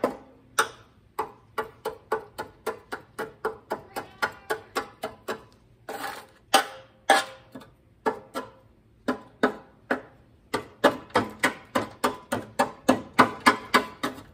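A screwdriver blade stabbed over and over into hard-packed dried grass and dirt caked inside a steel riding-mower deck, chipping the debris loose. Sharp strikes at about three a second, each with a short metallic ring from the deck, with a brief lull near the middle.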